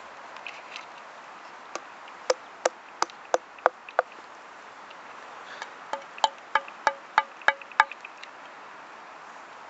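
Two runs of sharp, evenly spaced taps on something hard, about three a second; the second run has a short pitched ring to each tap.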